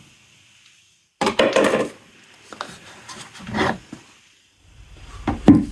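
Rear wheel of a riding lawnmower being slid off its axle and handled: a short scraping rub about a second in, then a few light knocks and rubs.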